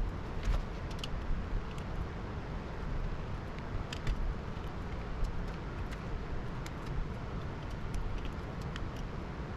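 Light clicks and taps of small parts and tools being handled on a workbench, over a steady low rumble.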